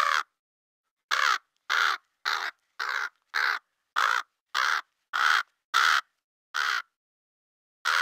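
Crow cawing: a run of about eleven short, harsh caws, roughly two a second, with a pause before the last one near the end.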